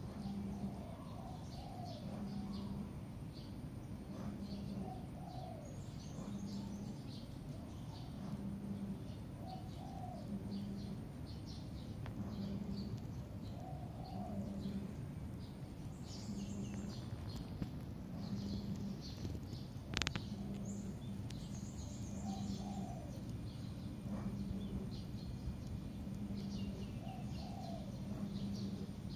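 Outdoor wildlife ambience: a low call repeats steadily about once a second, under curved, dove-like bird calls every few seconds and faint high chirping and ticking. One sharp click about two-thirds of the way through.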